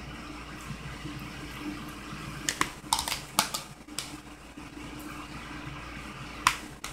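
Metal fork clicking and scraping against a plastic food container of ramen noodles: a handful of sharp clicks, bunched from about two and a half to four seconds in and one more near the end, over a steady low hum.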